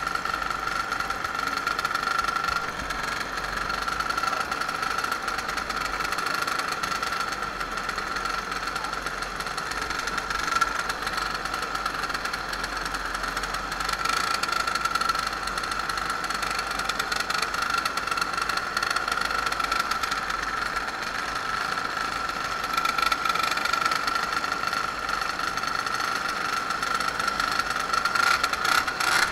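Moped engine running steadily under way, a constant high-pitched drone over road and wind noise.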